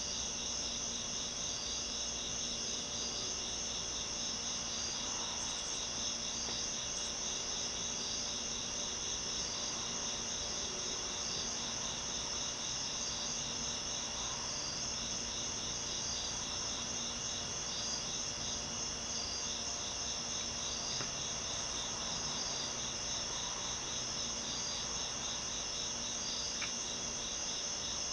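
Crickets chirping steadily in a continuous high-pitched chorus with an even, repeating pulse, over a faint low steady hum.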